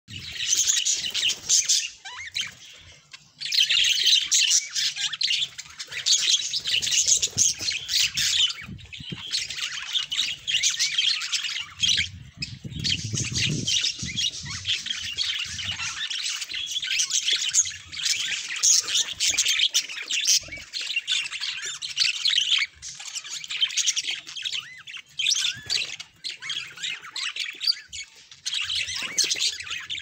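Budgerigars chattering continuously in many overlapping high calls, with a brief low rumble about twelve seconds in.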